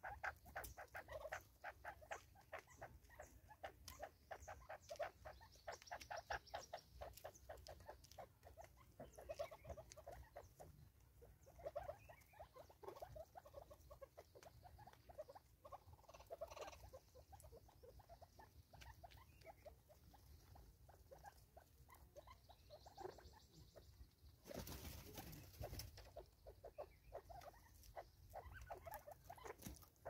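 Faint, rapid pecking of spurfowl beaks on seed and the feeder on a tree stump: a quick run of light taps, several a second, coming in spurts. A short rustling burst comes about five seconds before the end.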